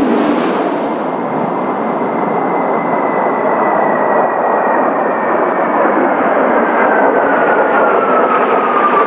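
Formation of Kawasaki T-4 jet trainers making a low abreast pass, their turbofan engines giving a loud steady jet roar with a high whine that slowly falls in pitch as they go by.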